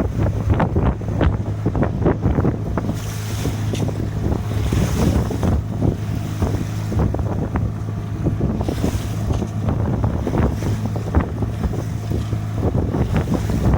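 Wind buffeting the microphone and sea waves washing against a sailing yacht's hull as it sails in a moderate breeze, with a steady low hum underneath. Brighter rushes of water come about three, five and nine seconds in.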